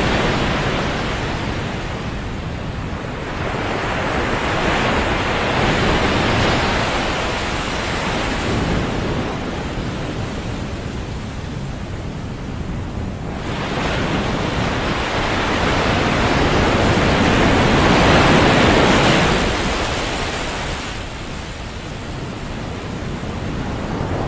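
Ocean surf on a beach: waves breaking and washing in, the noise swelling and ebbing every few seconds, with one long surge building in the second half.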